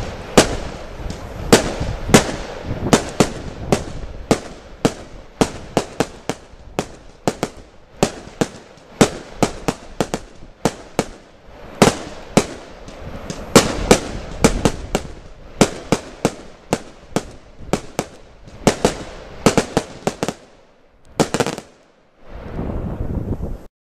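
Lesli 'I Am The Night' Royal Class firework battery firing shot after shot, with loud sharp reports and dense crackling from its bursting red stars. The firing stops about 21 seconds in.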